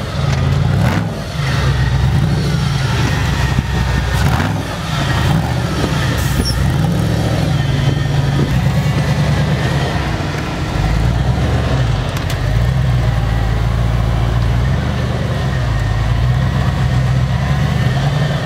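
Off-road vehicle's engine running, its pitch rising and falling as engine speed changes, with a few short knocks in the first several seconds.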